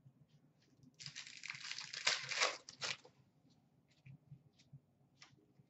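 A hockey card pack's wrapper being torn open and crinkled for about two seconds, starting about a second in, followed by a few faint ticks as the cards are handled.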